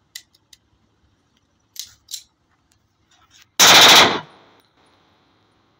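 Home-built TT 30 bore (7.62×25 mm Tokarev) pistol firing a short burst on full auto: about half a second of rapid shots, about three and a half seconds in, with a short echo trailing off.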